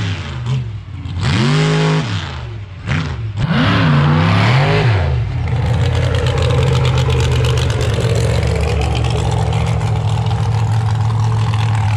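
Mega truck's blown methanol engine revving hard in several quick rising and falling surges, then running at a steady, slowly shifting note from about five seconds in. Commentators are unsure the driver ever got it into high gear on this run.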